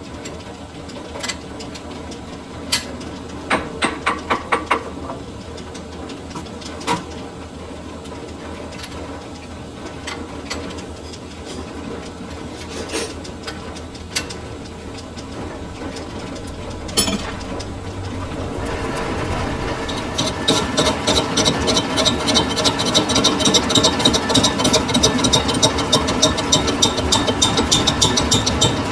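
Metal lathe running with a steady hum and occasional sharp metal knocks and clanks, including a quick run of several. About two-thirds of the way in it grows louder and a fast, even rattling chatter of about five ticks a second sets in.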